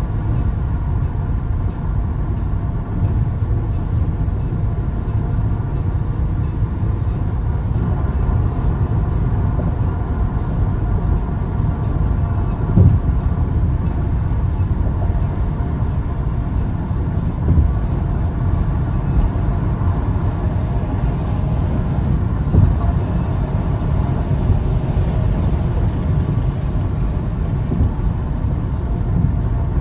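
Tyre and road noise heard inside a car cabin at highway speed on concrete pavement: a steady low rumble, with a few louder thumps spread through as the tyres hit bumps in the pavement.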